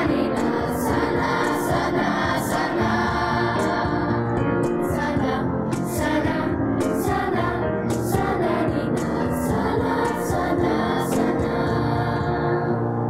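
Children's and youth choir singing together.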